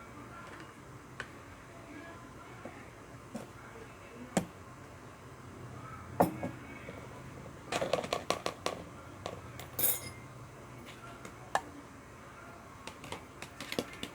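Scattered clicks and knocks of plastic bottles and containers being handled, with a quick run of clicks about eight seconds in and a short hiss just after.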